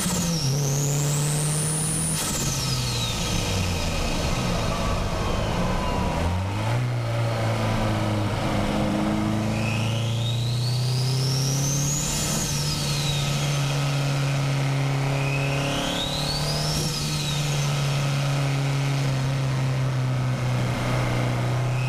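Nissan SR20DET turbocharged four-cylinder engine in a Miata pulling hard on a winding road. The turbo's whistle climbs as it spools under throttle and falls away when the throttle lifts, three times, with a fourth rise starting near the end. The engine note dips about five seconds in and then picks up again.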